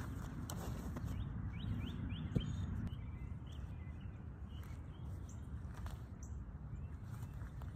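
Birds chirping over a steady low wind rumble on the microphone, with one sharp knock about two and a half seconds in.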